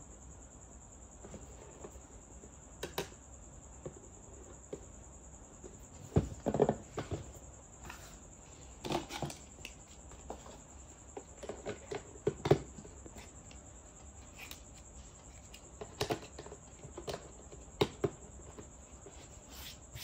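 Hard plastic toy kitchen parts clicking, knocking and rattling as they are handled and snapped onto a plastic toy kitchen cart, in scattered bursts of light taps.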